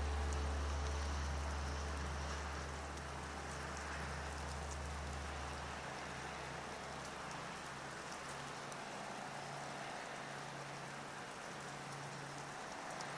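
A low didgeridoo drone, fading out about halfway through, over a steady rain-like hiss with faint scattered ticks.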